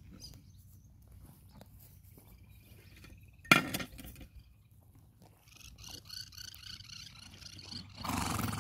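A single sharp metal clink about three and a half seconds in as a farrier's metal hoof stand is handled, then a short rush of noise near the end.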